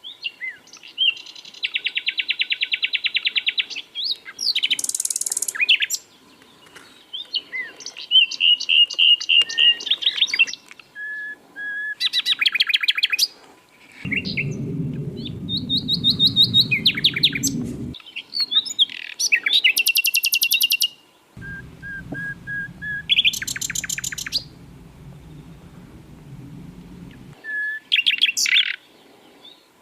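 Sikatan londo flycatcher singing a busy song of short separate phrases: fast trills, buzzy chattering rattles and brief flat whistles, with short pauses between them. A low hum sits under the song for a few seconds in the middle and again for several seconds later on.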